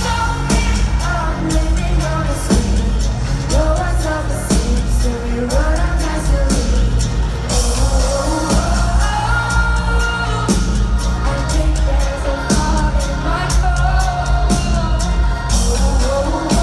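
Live pop music heard from within the crowd: a woman singing a melody over loud, bass-heavy band backing with drums and cymbals.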